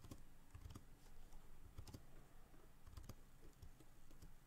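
Faint, scattered clicks of a computer mouse and keyboard, a few in the space of several seconds.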